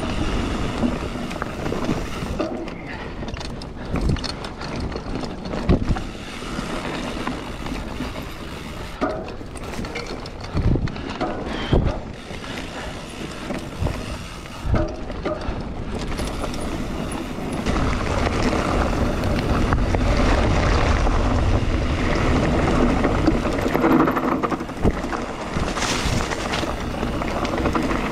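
Mountain bike riding down a dirt trail: wind rushing over the microphone and the tyres rolling, with scattered knocks and rattles as the bike goes over bumps. The rushing grows louder and steadier for about ten seconds in the second half.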